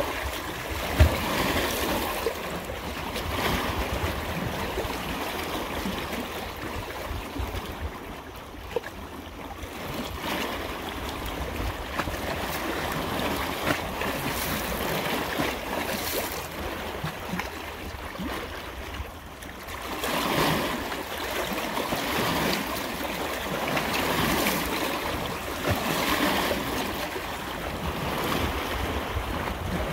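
Continuous rushing water, swelling and easing every few seconds, with a low rumble of wind on the microphone.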